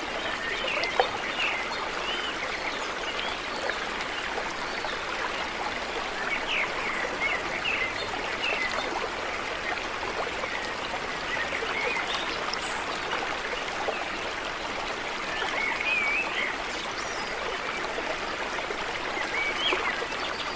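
Small songbirds give short twittering chirps every few seconds over a steady rush of running water. There is one sharp tap about a second in.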